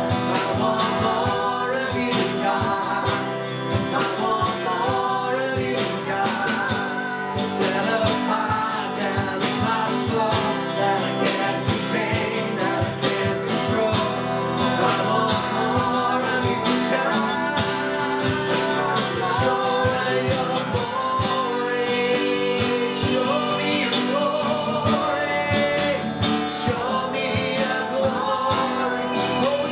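Worship music playing: a strummed guitar with singing.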